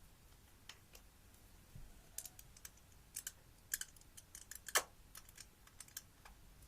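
Slime being handled, giving irregular small clicks and pops, the loudest about five seconds in.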